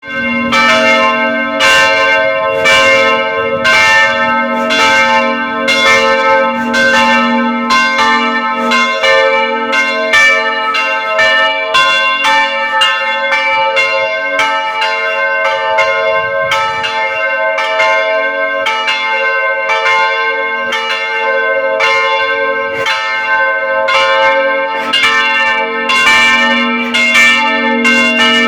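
Several church bells in a bell tower ringing together, struck in quick succession at nearly two strokes a second, each bell's tone ringing on under the next strokes.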